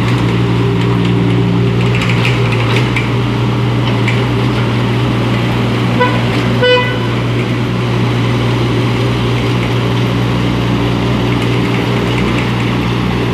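IHI IS27F mini excavator's diesel engine running steadily. About six seconds in, a horn gives two short toots, the second louder.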